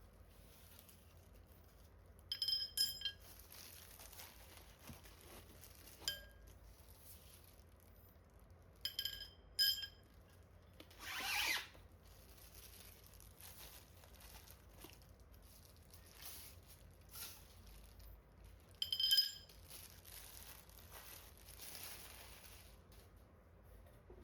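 Metal lamp parts clinking as they are handled, with a few short ringing clinks, two of them close together a little under halfway through and one more near the end. A brief rustle of packaging comes in between.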